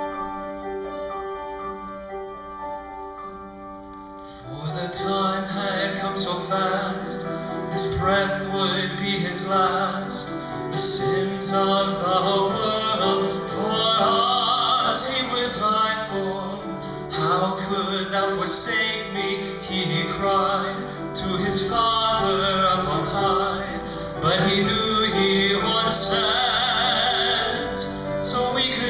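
A slow song: sustained instrumental chords, then a solo voice comes in about four seconds in, singing with vibrato over the accompaniment.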